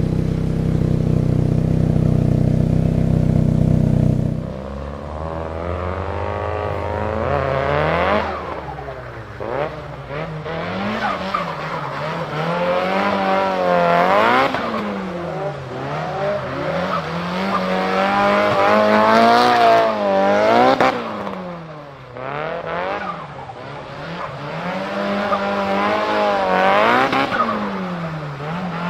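Nissan Silvia S15's turbocharged four-cylinder, fitted with an HKS GT-III turbo kit, heard onboard. It drones steadily for the first few seconds, then revs up and drops back again and again, rising in pitch through each pull and falling at each lift or shift.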